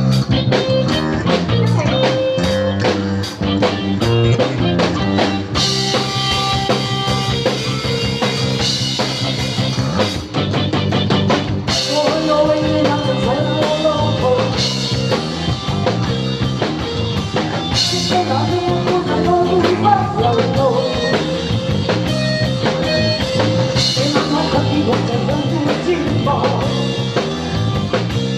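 Rock and roll music with drum kit and guitar, a voice singing in places; a cymbal crash about every six seconds.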